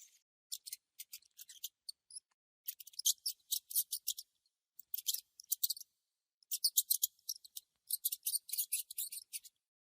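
Mouse squeaking: rapid, short, high-pitched chirps in about five quick runs, with silent gaps between them.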